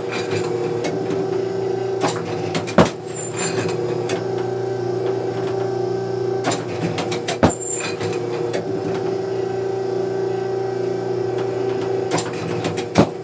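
Automatic clay-target trap machine working through a round: a steady motor hum, broken three times by a short run of clicks that ends in a loud mechanical clack as a clay is thrown.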